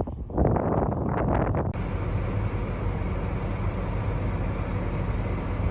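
Farm tractor engine running steadily, a low rumble mixed with noise. Before it, about the first second and a half holds irregular rustling or handling noise that stops abruptly.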